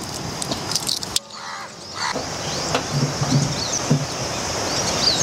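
Outdoor ambience: small birds chirping repeatedly over a steady rushing background noise, with a few sharp clicks in the first second or so.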